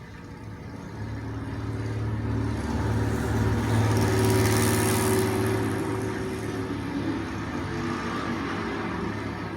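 Racing sports car engine passing by at speed, building to its loudest about halfway through and then fading.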